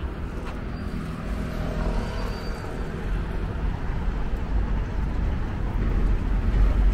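City road traffic, cars and double-decker buses passing, a steady low rumble that grows louder toward the end.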